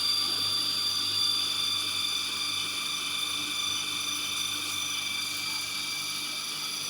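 Friction stir welding machine running steadily, its rotating tool traversing the seam between aluminium formwork panels: a steady high-pitched whine of several tones over a low hum.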